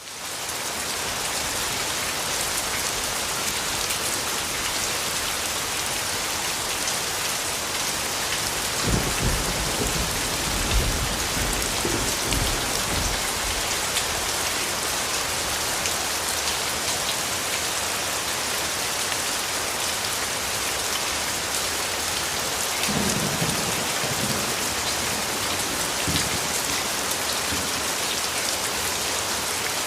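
Steady heavy rain falling, fading in over the first second. Low rumbles of distant thunder come about nine seconds in and again about twenty-three seconds in.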